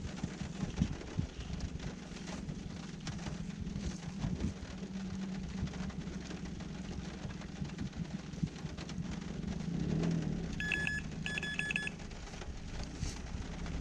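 Steady rain with drops ticking close to the microphone. About ten seconds in come two short bursts of rapid electronic beeping, typical of a carp-fishing bite alarm sounding as a rod is set on its rest.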